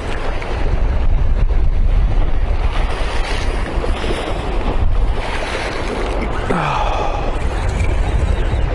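Wind buffeting the microphone outdoors, a steady low rumble over a soft, even rush.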